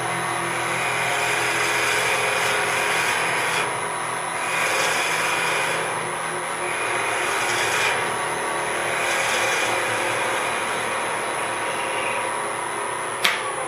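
Variable-speed wood lathe running at about 1300 rpm while a turning tool cuts a spinning wooden pen blank. The scraping cut swells and eases with each pass along the barrel. Near the end there is a sharp click, and the motor's steady high whine stops as the lathe is switched off.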